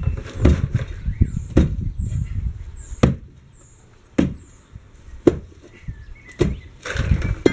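A steel tamping bar striking down repeatedly at the base of a gate post, about one sharp thud a second, packing in the fill around the post.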